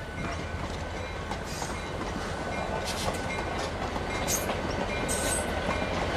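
EMD SD24 diesel-electric locomotive, with its turbocharged 16-cylinder 567 engine, approaching slowly at the head of a passenger train. Its engine runs with a steady rumble that grows gradually louder as it nears, with a few brief high squeaks from the train about halfway through and later.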